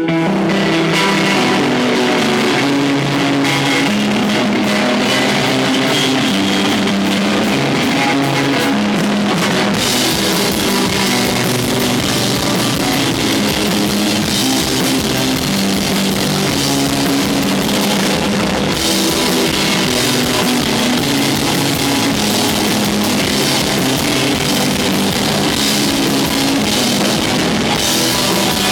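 Rock band playing live with electric guitar, bass and drum kit. The low notes are sustained under steady drumming, and the cymbals get brighter about ten seconds in.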